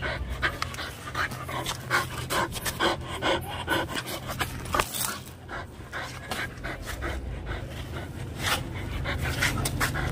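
Pit bull panting hard through its clenched jaws while holding a firm grip on a tug rag, in short irregular breaths.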